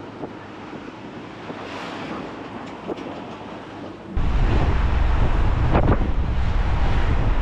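Wind on the microphone: a moderate rush for about four seconds, then it abruptly becomes loud, heavy low buffeting, with a couple of brief knocks.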